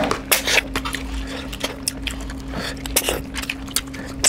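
Close-up eating sounds: wet chewing, lip smacks and squelching as rice and curry are eaten by hand, in quick irregular clicks over a faint steady low hum.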